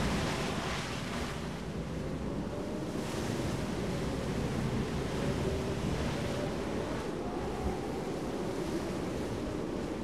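Steady rush of wind and choppy sea waves, with a faint engine hum underneath whose pitch slowly wavers.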